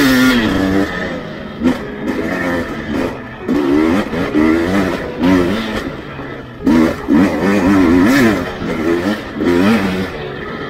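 Husqvarna TE300i's two-stroke single-cylinder engine revving up and down as the dirt bike is ridden, pitch rising and falling every second or so, with a few short drops as the throttle is rolled off.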